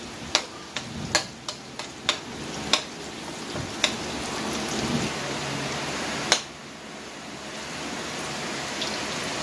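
Chopped garlic sizzling in hot canola oil in a metal wok, with a steady hiss. A metal spatula clicks and scrapes against the pan as it stirs, often in the first few seconds, then once more sharply about six seconds in.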